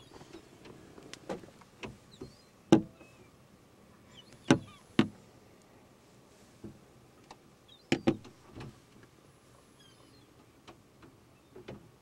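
Sharp knocks on the car's hood and windshield, heard from inside the car, as gulls peck and step just outside the glass. They come one at a time, loudest about three seconds in, twice around four and a half to five seconds, and as a quick pair near eight seconds. Faint high bird calls sound in the background.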